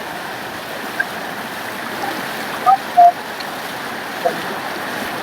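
Floodwater rushing steadily, with a few brief faint voices in the background about three seconds in.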